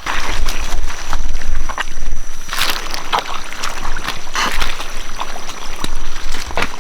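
Rubber boots squelching and sloshing through wet mud, several irregular steps, over a steady high whine.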